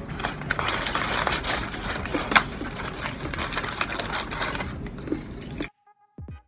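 Close-up crunching and crackling of crispy fried chicken being torn apart and chewed, mixed with the crinkle of paper wrappers, in a rapid, dense run. It cuts off suddenly near the end.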